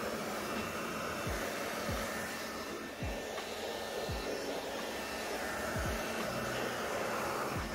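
Handheld air blower running steadily, blowing air across wet car paint, with several short low falling whooshes.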